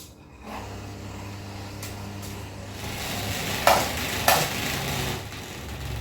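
Fan spinning up with a low hum and a rushing, hissing whir that grows louder about three seconds in. Two sharp knocks come about half a second apart, then the whir eases off near the end.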